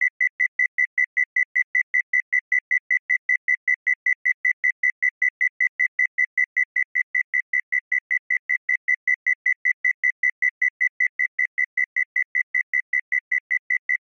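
Synthesized cricket chirp: a 2 kHz sine tone ring-modulated about 35 Hz away, gated by a pulse-wave LFO into a fast, even train of short chirps, about four or five a second, with a faint second tone near 6 kHz. Partway through, the ring modulator's wave changes from sine to triangle, which adds a buzzier spread of sidebands around the 2 kHz tone.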